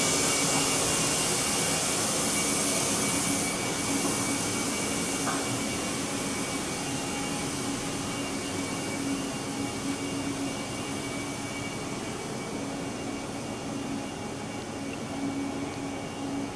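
Steady whirring hiss and hum of a stationary 651 series electric limited-express train's onboard equipment (fans and auxiliary machinery) running while it stands at the platform, with a held low hum, slowly getting quieter.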